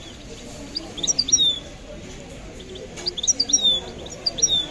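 A small songbird singing two short twittering phrases of quick high chirps, each ending in a down-sliding note: the first about a second in, the second from about three seconds to near the end.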